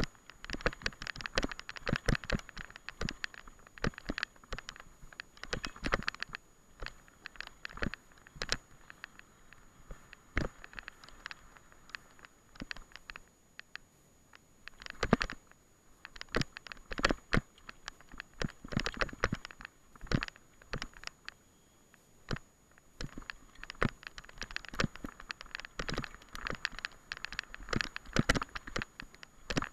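Mountain bike rattling and knocking over a rough, bumpy grass track, with irregular sharp clatters from the bike and the swish of tyres through grass; it eases off briefly around the middle.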